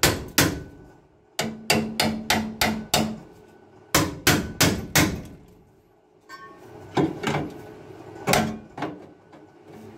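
Hammer tapping the steel chassis rail of a Land Rover Series 2a in, so the new front spring hanger will fit over it. The strikes come in quick runs of about four a second with pauses between, the steel ringing under the blows, then a few single taps near the end.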